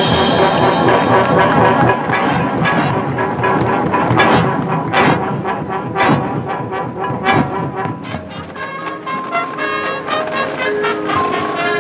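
High school marching band playing: a loud brass hit at the start, then full brass over drums. After about eight seconds it thins to shorter, brighter notes over quick drum or mallet strokes.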